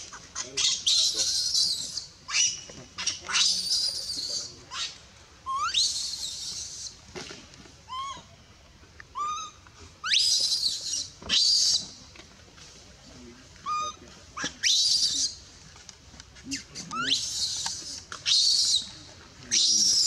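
Baby long-tailed macaque crying in distress: repeated high-pitched screams, many sweeping sharply upward in pitch, one after another with short gaps between.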